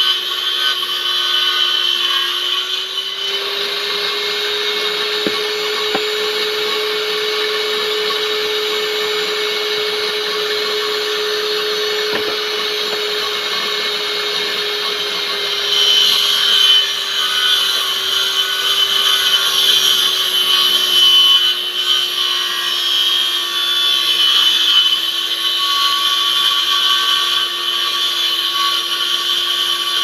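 A small motor running steadily, its drone rising slightly in pitch about three seconds in and sinking slowly again later, with a hiss over it.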